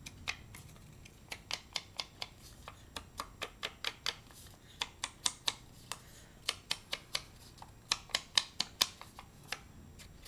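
Foam ink-blending sponge tool dabbed again and again against a small die-cut paper picture: a run of light, uneven taps, a few a second.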